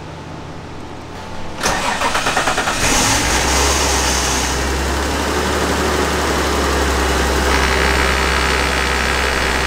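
BMW E36 M3's straight-six cranking on the starter for about a second, then catching and settling into a steady idle. It is the engine's first start on freshly filled oil after an oil change.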